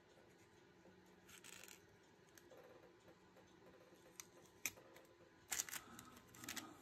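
Near silence with a few faint, sharp clicks and light handling sounds of small work, bunched in the second half.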